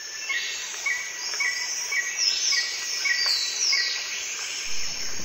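Nature ambience of chirping birds and insects: short chirps repeating about twice a second, with higher whistles sliding down in pitch now and then.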